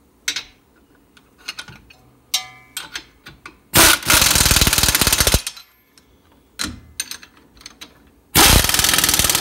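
Impact wrench hammering in two bursts, the first about a second and a half long and the second starting near the end, as it tightens the nuts on the strut-to-knuckle bolts. Light metal clinks of a hand wrench on the bolts come between the bursts.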